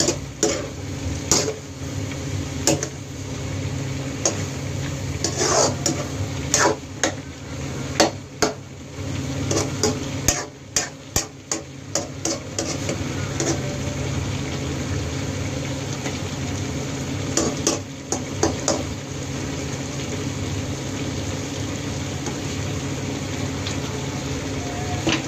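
Metal ladle stirring diced squid in a frying pan, clinking and scraping against the pan in irregular knocks, busiest around the middle and again a little later, over a steady low hum.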